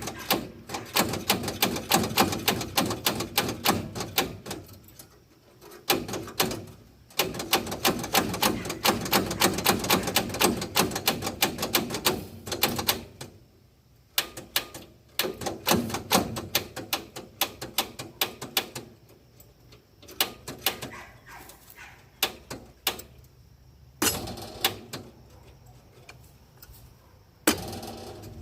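Ratchet wrench clicking rapidly in long runs with short pauses, turning over the long-idle engine of a Woodchuck WC17 wood chipper by hand as it breaks free. A sharp knock comes near the end.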